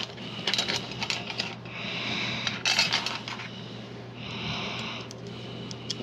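Small metal screws clinking as they are handled by a metal tin, then a screwdriver driving screws into the vacuum's plastic housing in two rasping stretches of about a second each.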